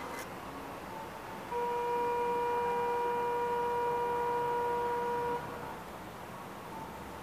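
A steady single-pitch signal tone on a railway platform, starting about one and a half seconds in and held for about four seconds before stopping abruptly, over a low steady background.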